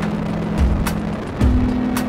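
Background music with a steady drum beat and held low notes that shift in pitch about two-thirds of the way through.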